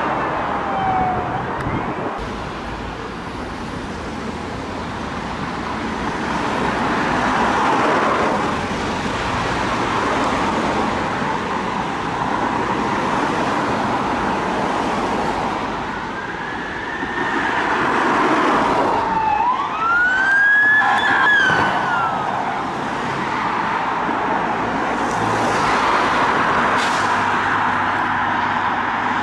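Police car sirens over the noise of passing road traffic. A siren sweeps up and down clearly about halfway through, with fainter siren tones near the start.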